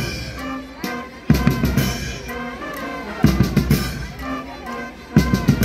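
School cadet band playing a marching beat: three loud bursts of rapid snare and bass drum strokes about two seconds apart, with softer tones between them.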